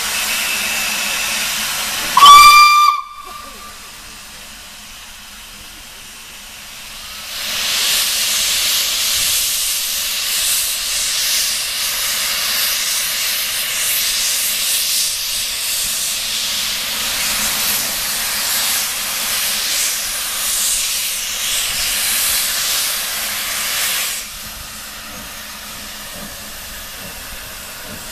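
LNER D49 class 4-4-0 steam locomotive No 246 Morayshire gives one short, loud whistle blast about two seconds in. From about seven seconds its open cylinder drain cocks let out a loud, steady hiss of steam as it draws its train forward. The hiss drops to a quieter level near the end.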